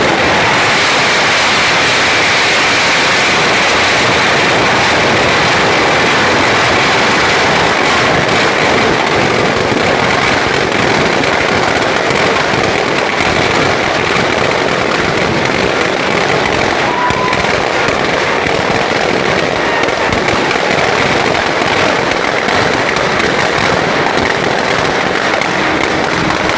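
Firecrackers packed inside a burning Ravan effigy going off in a dense, continuous crackle of rapid bangs.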